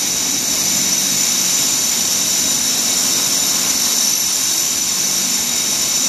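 Wagner PC 830 screw-pump plaster sprayer running: a loud, steady hiss over a low, even hum.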